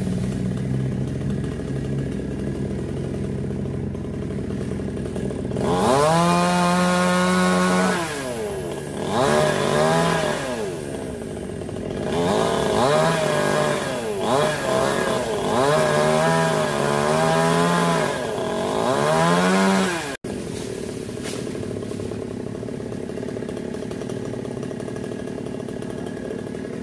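Chainsaw idling, then opening up to full throttle about six seconds in and cutting wood for about fourteen seconds, its pitch repeatedly dipping and recovering as the chain bites under load. It cuts out for an instant at about twenty seconds, then runs steadily at a lower pitch.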